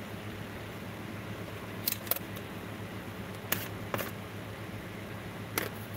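About five light clicks and taps as glass pieces and tools are handled on a stained-glass work tray, over a steady low hum.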